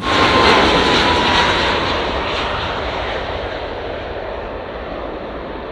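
Airplane engine noise: a steady rushing sound with a faint high whine. It starts suddenly and slowly fades away.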